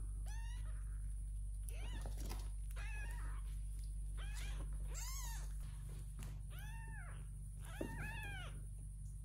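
Young kitten meowing repeatedly: about eight short, high-pitched meows, each rising then falling in pitch, a second or so apart.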